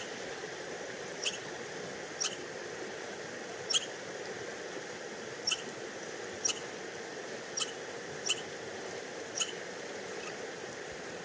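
An American red squirrel giving short, sharp high-pitched calls about once a second, ten or so in a row, over a steady background hiss.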